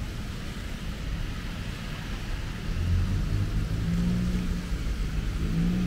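Wet city street in light rain: a steady hiss of rain and tyres on wet pavement, with a vehicle's low engine hum coming in about three seconds in and growing louder.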